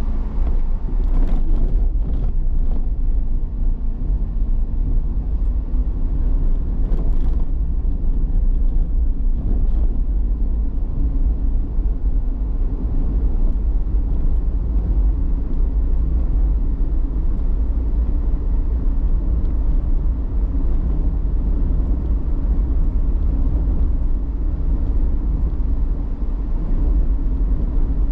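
A car driving along a road: a steady low rumble of engine and tyre noise. A few brief knocks come near the start and again about seven seconds in.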